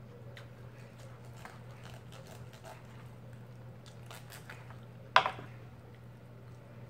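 Hands tearing apart a roasted chicken, with small sticky clicks and crackles, along with mouth-close chewing. There is one sharp loud crack or knock about five seconds in.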